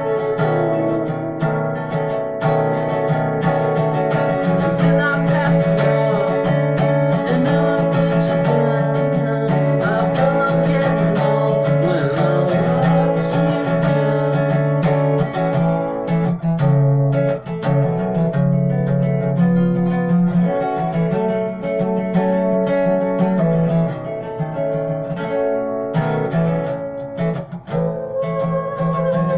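Music led by plucked acoustic guitar.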